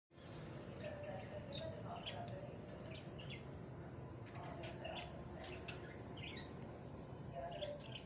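Lovebirds chirping in short, scattered calls over a steady low background hum.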